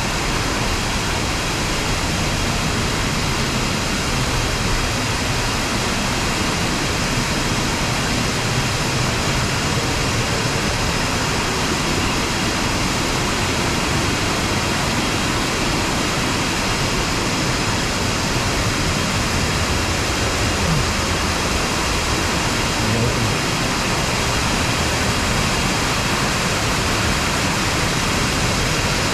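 Steady rushing of a waterfall and fast river water, an even wash of noise that does not let up.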